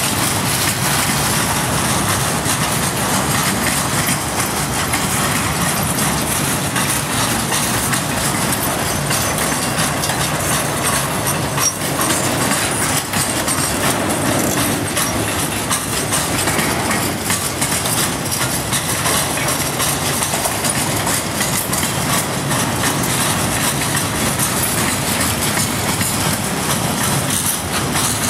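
Boxcars of a freight train rolling past close by: a steady, unbroken noise of steel wheels running on the rails.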